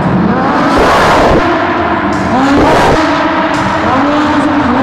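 Porsche 911 GT3 race car's flat-six engine revving hard as the car drifts, the revs climbing sharply right at the start and again about halfway through, with the engine note dropping in between.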